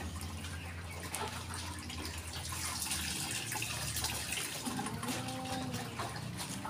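Water sloshing and trickling in a plastic bucket as a vitamin dose is mixed into chicken drinking water, a steady wash of water sound.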